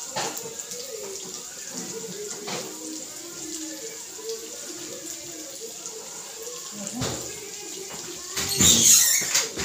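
Kitchen tap running steadily into a sink. Near the end comes a loud clatter of metal pots and utensils.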